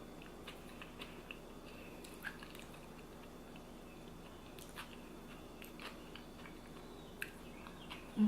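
Quiet chewing of a mouthful of soft food, with small wet mouth clicks scattered throughout. A short low hum of the voice starts right at the end.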